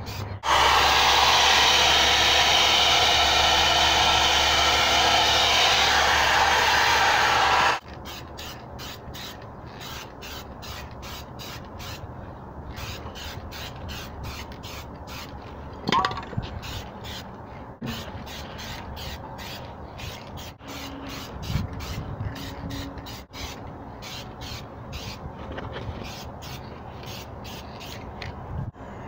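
Aerosol spray paint can spraying a loud, steady hiss for about seven seconds, cutting off suddenly. Then the can is shaken, its mixing ball rattling about three times a second.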